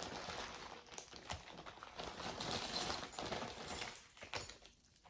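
Packaging crinkling with small clicks and rattles as pieces of jewelry are handled, dying away near the end.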